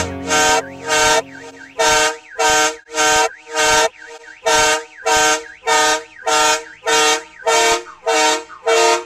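Train air horn sounding a chord in short, evenly spaced blasts, about two a second, with a brief pause near the middle. The last notes of a song fade out under the first few blasts.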